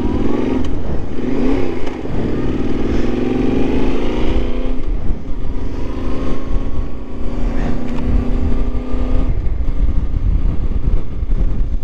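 Yamaha Ténéré 700's parallel-twin engine accelerating away from a stop. The pitch climbs, drops sharply at a gear change about five seconds in, pulls up again, then falls back near the end as the throttle eases. Wind rumbles on the microphone throughout.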